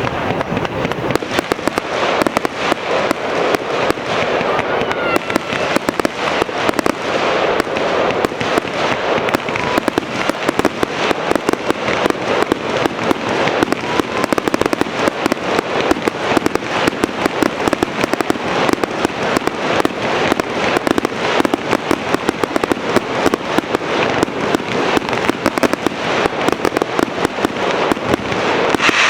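Fireworks display: a dense, continuous barrage of shells bursting in rapid succession, the bangs overlapping into a crackling rattle that grows denser toward the end.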